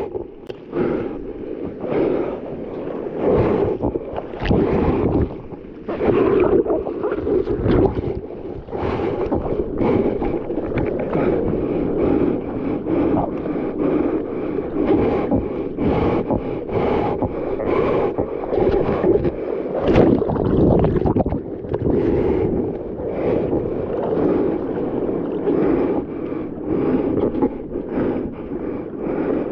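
Sea water sloshing and splashing around a surfer's point-of-view camera, with many short sharp splashes and wind buffeting the microphone.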